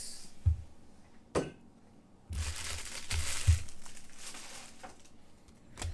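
Trading-card packaging handled on a table: a couple of knocks, then plastic wrapper crinkling for about a second and a half, and a sharp click near the end.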